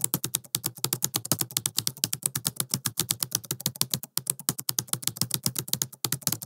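Typing sound effect: a fast, even run of key clicks, well over ten a second, with brief breaks about four and six seconds in.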